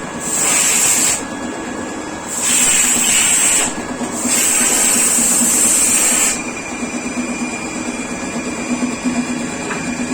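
Steady hum of a running lathe machine, broken by three loud bursts of hissing spray, each one to two seconds long, the last ending about six seconds in.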